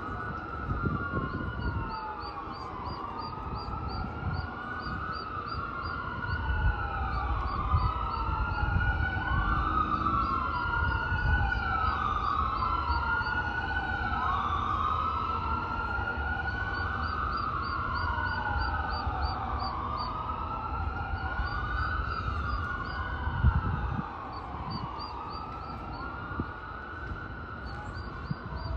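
A wailing siren, its pitch rising and falling about every two seconds, over a low rumble.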